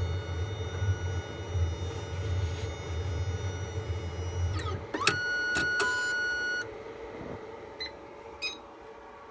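Optical frame tracer running as its stylus traces the frame's lens groove: a low motor hum with a steady whine that stops a little under five seconds in. A click and a long electronic beep of about a second and a half follow, marking the end of the trace.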